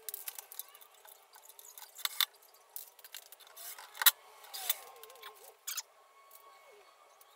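Scattered light clicks, clinks and knocks from hands handling flat-pack cabinet parts and metal screws, the loudest knock about four seconds in.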